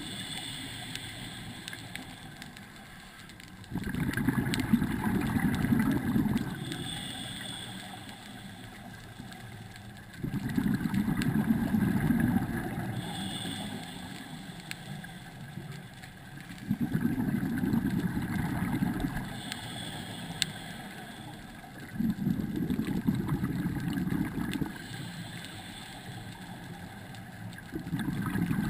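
Scuba diver breathing through a regulator underwater: a low burst of exhaled bubbles about every six seconds, each lasting two to three seconds, with a short hiss of inhalation between them.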